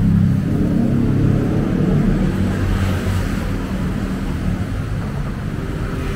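Road traffic running steadily on the street alongside, a low engine rumble that eases slightly after the first few seconds.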